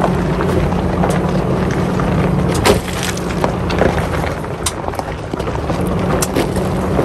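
Vehicle tyres rolling slowly over loose rock and gravel, stones crunching and clicking now and then, over a steady low rumble from the vehicle.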